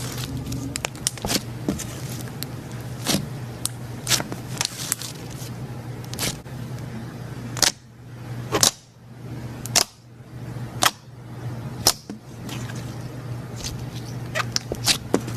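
Slime being played with, making irregular sharp pops and clicks over a steady low hum.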